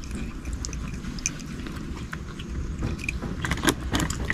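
Close-up eating sounds over a grilled shellfish meal: scattered small clicks and scrapes as meat is picked from spider conch shells, with a quick run of sharper clicks about three and a half seconds in.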